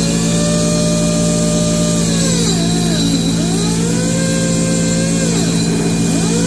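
Homemade lathe converted from a drill press running with a steady motor hum. Its pitch sags and recovers twice, about halfway through and again near the end, as the tool bites into the turning work.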